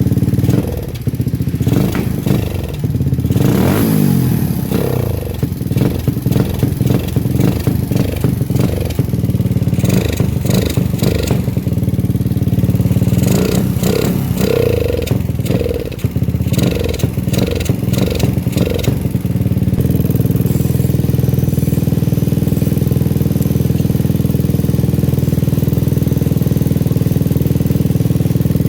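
Suzuki Satria FU's single-cylinder engine revved in uneven surges and dips for about twenty seconds, then settling into a steady idle.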